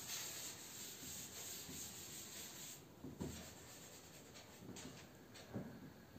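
Chalk being wiped off a blackboard in rubbing strokes, a scraping hiss that fades about three seconds in, followed by two soft knocks.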